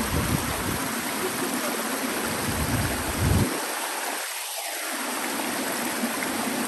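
A shallow rocky stream rushing and splashing steadily over stones.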